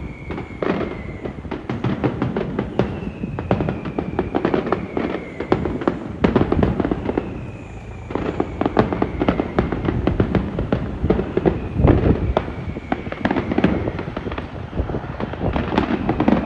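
Mascletà firecrackers going off across the city in a rapid, continuous crackle of bangs, with a brief lull about eight seconds in. A faint falling whistle recurs every few seconds.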